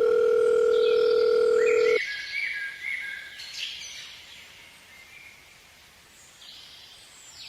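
A steady electronic beep tone held for about two seconds and cut off abruptly, followed by faint outdoor background with birds chirping.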